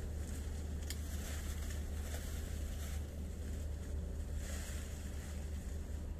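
Steady low rumble of wind on the microphone, with lychee leaves and branches rustling as they are pulled, and one sharp click about a second in.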